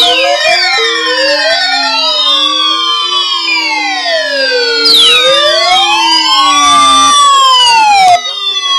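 Several sirens sounding at once, their pitches sliding up and down and crossing one another: quick repeated rising whoops at first, then slow wails, cutting off abruptly about eight seconds in.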